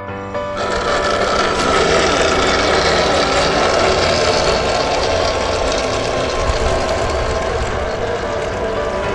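Battery-powered 1:10 scale RC Oshkosh HEMTT M977 8x8 truck driving through a muddy puddle: the electric motor and drivetrain run steadily under a dense noisy hiss, starting about half a second in as short piano music cuts off.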